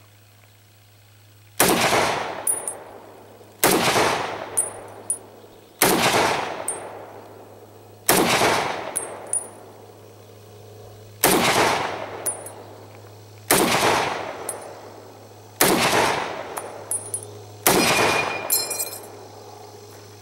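M1 Garand semi-automatic rifle in .30-06 firing eight slow, aimed shots about two seconds apart, each a sharp crack that trails off over about a second. Just after the eighth shot the empty en bloc clip ejects with a high metallic ping.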